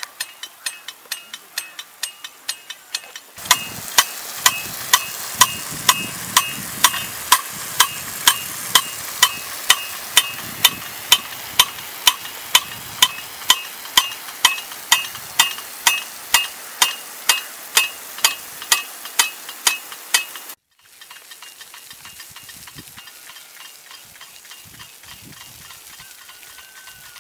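Rain gun sprinkler's swing-arm drive clacking rhythmically, about twice a second, over the steady hiss of its water jet. The clacking jumps louder a few seconds in, then cuts off suddenly and goes on much quieter after about twenty seconds.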